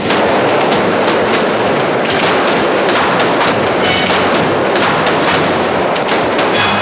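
Movie-shootout gunfire: pistol shots and bullet hits packed so closely that they merge into a continuous loud barrage.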